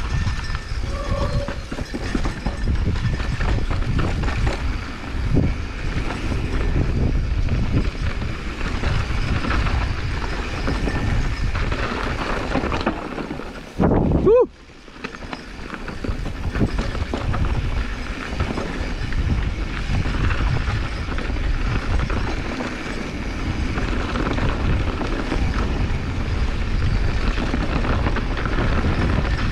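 Mountain bike rolling fast over a dirt singletrack, heard from a camera riding along: steady wind rush on the microphone over the clatter and rattle of the bike on bumps. About halfway through comes a brief louder moment with a short rising squeal, then the sound drops out for an instant.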